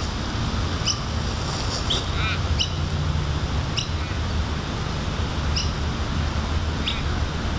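Birds calling in short, high, downward-slurred notes, one every second or so, with a brief warble about two seconds in, over a steady low rumble.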